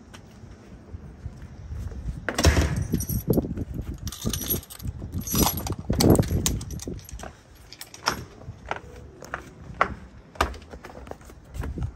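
Irregular clicks, knocks and a light metallic jingle from keys and handling, close to the microphone, over low rubbing noise. Louder clusters of knocks come about two and a half and six seconds in.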